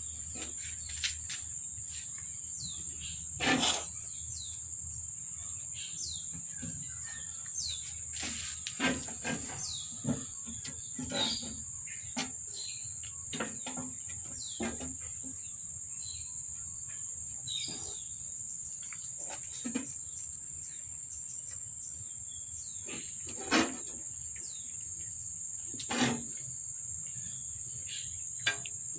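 Steady high-pitched insect buzz, with short scattered chirps and a few brief knocks or taps, the loudest about three and a half seconds in and again near twenty-three seconds.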